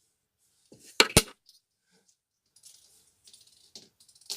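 Coins being set down on a hard surface: two sharp clicks in quick succession about a second in, then faint small taps and rustles.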